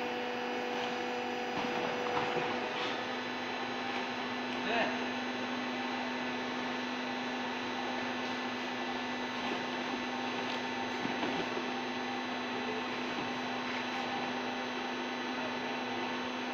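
Hydraulic baling press power pack (electric motor and pump) running with a steady hum while the ram is idle and the chamber is being loaded. Faint rustles of cardboard are pushed in now and then.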